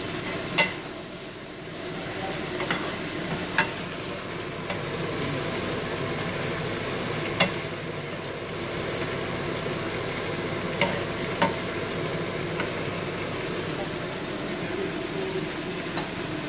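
Taro stem stir-fry sizzling in a frying pan while a wooden spatula stirs it. Now and then there is a sharp knock of the spatula against the pan.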